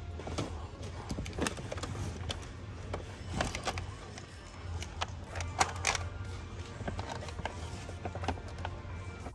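Toys being handled: scattered clicks and rustles, with one sharper click a little past halfway, over a steady low hum.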